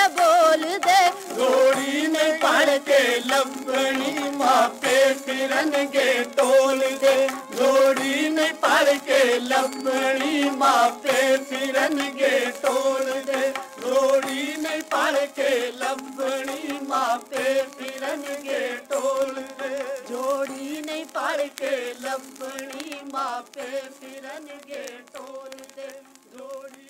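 Punjabi Sikh devotional singing played from an old vinyl LP: a sung chant with long, wavering held notes over a steady crackle of record surface clicks, fading out over the last few seconds.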